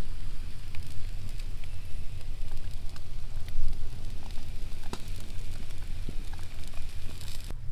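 Glowing wood embers crackling, with scattered sharp pops over a steady hiss, on top of a constant low rumble.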